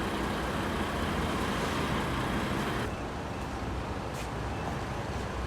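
Steady outdoor background noise with a low rumble, like road traffic; about three seconds in the high hiss drops away suddenly.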